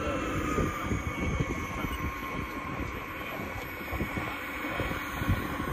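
Turbine engine of a radio-controlled F-86 Sabre model jet whining as it flies by, its high pitch slowly falling. Gusty wind noise on the microphone underneath.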